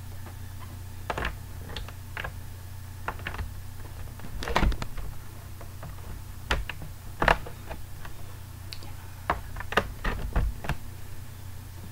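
Irregular clicks and light knocks of hands handling a laptop and a USB cable, connecting it and working the computer, over a steady low hum. The loudest knocks come about four and a half and seven seconds in.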